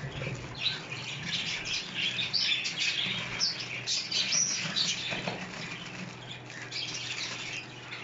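Caged pet birds chirping and squawking, with the crinkle of a plastic bag as plaster of Paris powder is poured into a plastic bucket.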